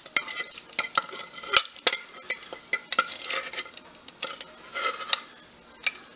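Cooked pasta being worked out of a metal pot into a glass baking dish: irregular clicks and taps of the utensil against the pot, with a few soft, wet slithering sounds as the noodles slide out.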